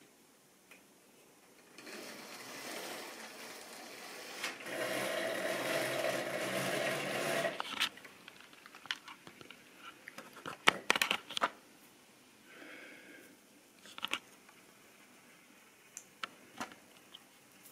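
Small electric motor of a model railway locomotive running for about six seconds, getting louder partway through and cutting off abruptly. After it come a series of sharp clicks and knocks.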